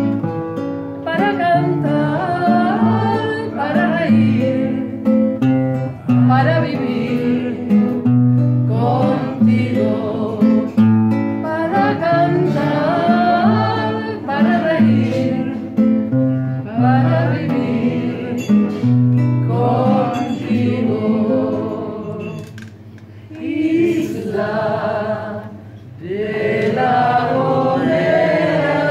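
Classical guitar strummed as accompaniment while a woman and a man sing a song together. The music softens for a few seconds about two thirds of the way through, then comes back full.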